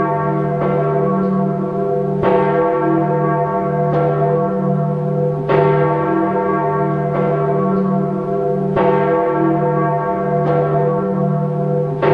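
Church bells tolling, a stroke about every second and a half, each one ringing on over the next.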